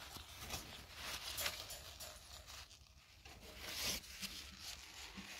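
Faint rustling and crinkling of a paper tissue and the absorbent pad as a kitten's mouth is wiped. It comes in several short spells, the loudest about four seconds in.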